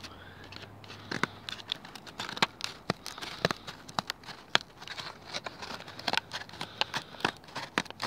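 Small spring-loaded scissors of a cheap multitool snipping and chewing through a cardboard packaging card: many irregular sharp snips and crinkling crunches. The blades cut it, but not with ease.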